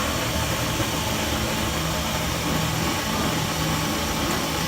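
Steady loud hiss over a low, even machine hum.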